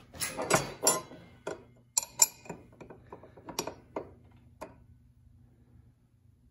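Stamped steel spanner wrenches clinking and clanking against the Ryobi table saw's arbor nut and blade flange as they are fitted to break the nut loose. The sound is a string of sharp metallic clicks over the first five seconds, with the loudest knock about two seconds in.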